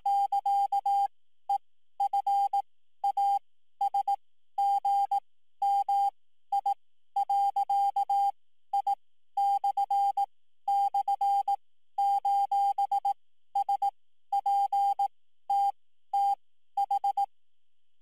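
A single steady electronic beep tone keyed on and off in irregular short and long pulses, a coded signal like Morse code from a puzzle audio file being played back. The pulses stop about a second before the end.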